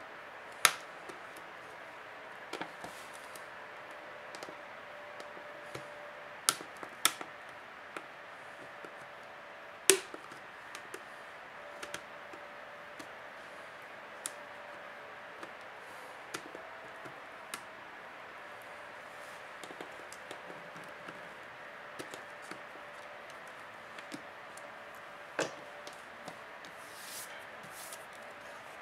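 Scattered sharp clicks and light taps as a knife blade and fingers pry and press at the bezel of a Samsung Galaxy Tab 3 tablet. A few louder clicks stand out, the strongest about a second in and around ten seconds.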